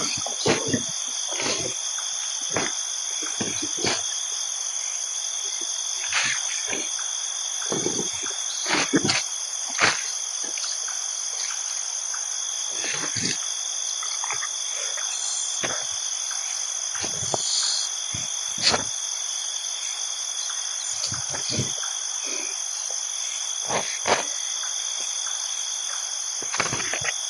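Steady chorus of insects chirring on two high held pitches. Irregular sharp clicks and rustles are scattered through it, the loudest about ten seconds in and again near nineteen seconds.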